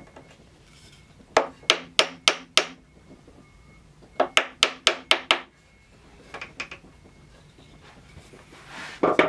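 Wooden mallet tapping a glued wooden dowel pin into a table-leg joint: two runs of quick knocks, five and then about seven, followed by a few lighter taps. A brief, louder noise comes right at the end.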